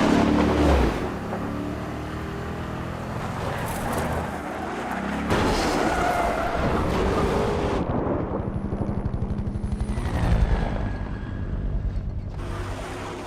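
Film car-chase sound: car engines running hard and revving, their pitch rising and falling, beginning with a sudden loud hit.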